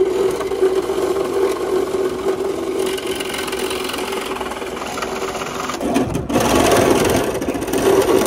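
Motor of the lifting machine hoisting a truck cab, running with a steady whirring hum; it breaks off briefly about six seconds in and comes back a little louder.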